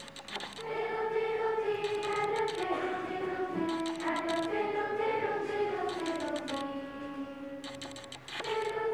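Children's school choir singing, holding long notes that step up and down in pitch, with short bursts of hand clapping near the start, about halfway through and near the end.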